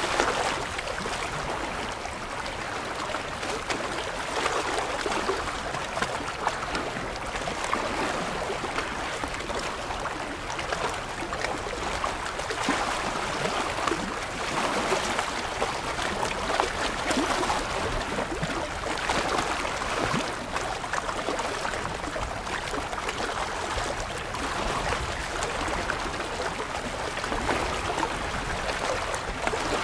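Small waves lapping and splashing against shoreline rocks: a steady wash of water that swells and eases.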